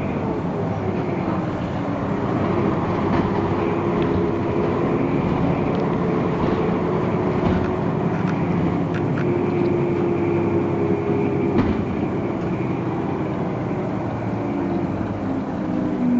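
City bus engine running on the move. Its pitch falls over the first second or so, then holds steady, with a few scattered light knocks and rattles.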